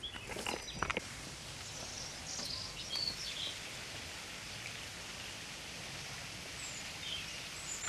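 Outdoor ambience: a few footsteps on rock in the first second, then a steady outdoor hiss with a few short, faint bird chirps.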